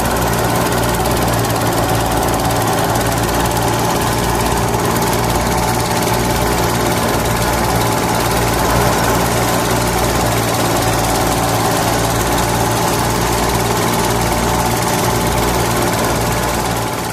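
Small motor inside a toy model diesel engine driving a miniature spiked-drum paddy thresher by belt, running steadily at a constant speed while rice stalks are fed against the drum. It fades out at the very end.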